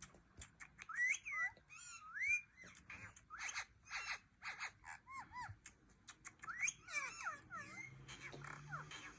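Indian ringneck parakeet chirping and whistling: a string of short whistled notes that swoop up and down in pitch, mixed with sharp chirps.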